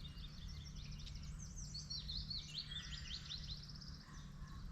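Songbirds singing: quick runs of high chirps and down-slurred notes, over a low steady background rumble.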